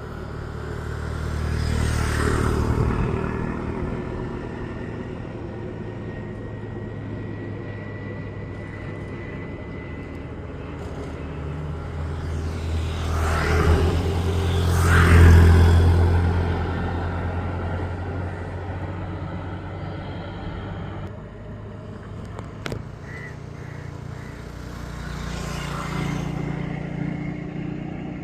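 Motor vehicles passing by over a steady low rumble: three swells in level, one about two seconds in, a louder double one in the middle, and one near the end.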